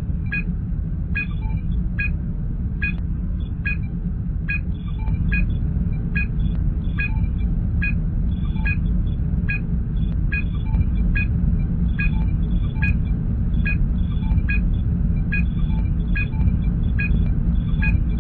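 Star Trek starship bridge ambience sound effect: a steady low engine hum, with short electronic computer blips repeating a little faster than once a second. The hum gets slightly louder about five seconds in.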